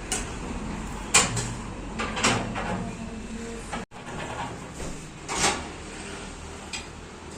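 Several sharp knocks and clanks over a steady background, the loudest about a second in.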